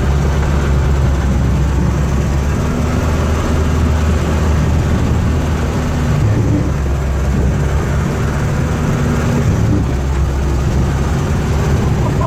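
Snowcat engine running steadily under load as the machine drives through deep snow, heard from inside the cab as a loud low drone with slight rises and falls in pitch.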